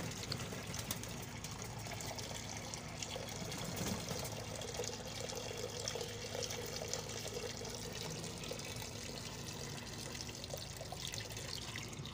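A thin stream of water poured from a plastic container into a shallow terracotta bowl, splashing steadily into the water as the bowl fills.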